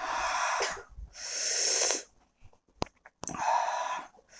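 A man breathing hard in and out through his mouth, four long hissing breaths of about a second each, with two short clicks about halfway through: trying to cool a mouth burning from the extremely hot Jolo chili chip.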